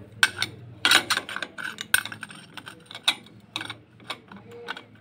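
Yamaha FZS clutch plates clinking and clattering against the clutch hub and basket as they are slid on by hand. The sound is a string of irregular light metallic clicks, the sharpest about a second in and again around three seconds in.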